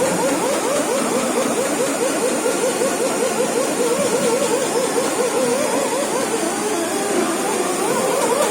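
Electric fish scaler running against a grouper's scales: a motor whine whose pitch wavers up and down a few times a second as it is worked back and forth, over a steady hiss.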